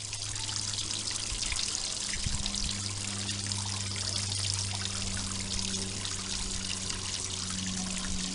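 Filtered water falling from a raised filter outlet as a small makeshift waterfall, a steady splashing trickle. A low steady hum runs underneath.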